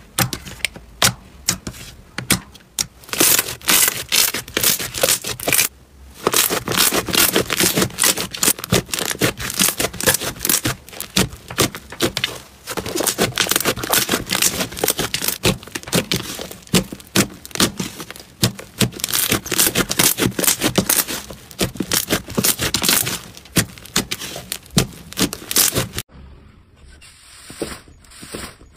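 Hands squeezing and kneading slime, making a dense run of wet squishes, small pops and crackles as air pockets in the slime burst. It turns quieter near the end.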